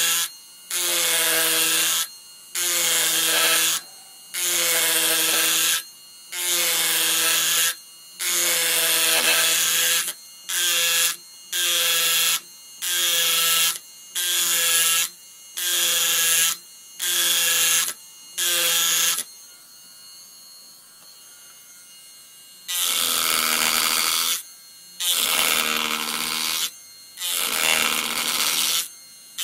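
Handcraft Deluxe HCT-30S electric carving machine: its vibration head, fitted with a 12 mm round gouge, buzzes in repeated bursts of a second or so as it cuts into Japanese yew. After a few seconds' pause about two-thirds through, its rotary head with a sanding wheel runs in a few bursts against the wood.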